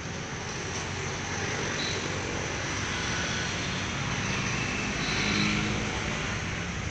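Steady road traffic noise, a continuous wash of sound with no distinct events, swelling slightly about five seconds in.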